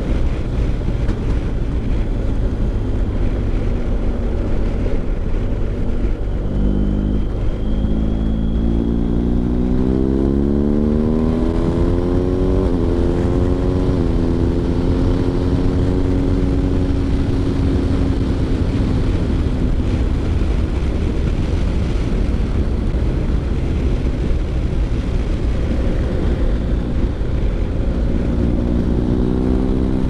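BMW R 1250 GS Adventure's boxer twin running through a Remus Hawk slip-on silencer, accelerating with the pitch climbing from about a quarter of the way in, two quick gear changes a little before halfway, then holding a steady note and rising again near the end. Wind rushes over the microphone.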